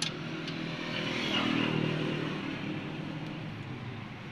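A motor vehicle engine running, growing louder about halfway through and then fading again. A few light clicks come right at the start.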